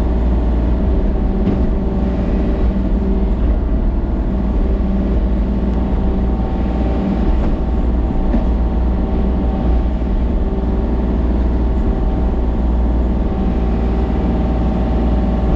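A machine's engine running steadily at constant speed, a loud, even low drone with no change in pitch.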